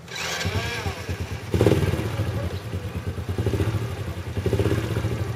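Red Honda underbone motorcycle being started: the engine catches about one and a half seconds in and then runs, its sound rising and falling unevenly.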